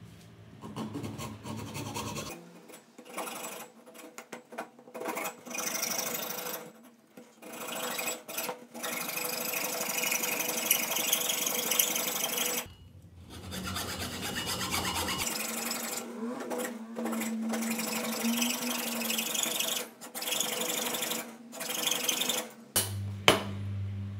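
Hacksaw cutting into a block of wood by hand, a steady rasping of back-and-forth strokes with a couple of brief pauses, and a sharp knock near the end.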